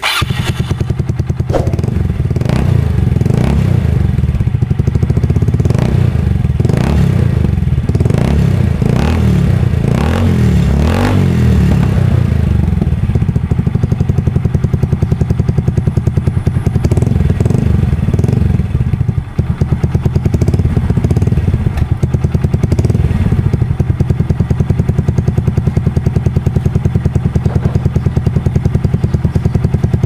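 A Yamaha Mio Soulty scooter's single-cylinder four-stroke engine running through a Chicken Pipe V5 aftermarket exhaust with no silencer, very loud. It is revved up and down in repeated blips for the first ten seconds or so, then settles into a steady, evenly pulsing run.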